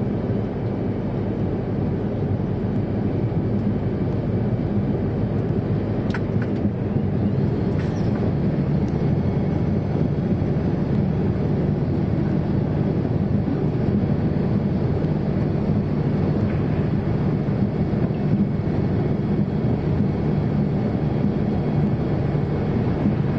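Steady drone of a MAN TGA 26.430 lorry's diesel engine at motorway cruising speed, mixed with tyre and road noise, as heard from the cab. A couple of faint clicks about six and eight seconds in.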